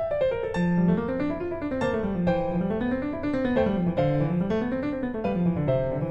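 Background piano music: gentle arpeggios that climb and fall again about once a second.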